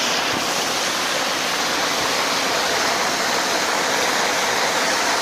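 Stream water pouring steadily over rock ledges in a small cascade.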